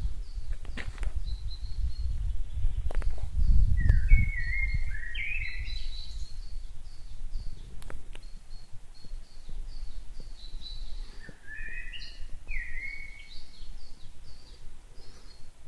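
Woodland birds singing and calling: short chirps and repeated high notes from several birds. A low rumble runs under them for the first five seconds or so, loudest about four seconds in.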